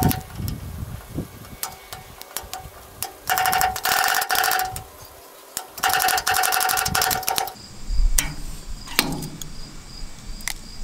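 A metal pick scraping and prying at the remains of the old lower gearbox seal on a Bush Hog 305 cutter's output shaft. There are scattered metal clicks, two long buzzy chattering scrapes a few seconds in, then a knock near the end as locking pliers grab the seal.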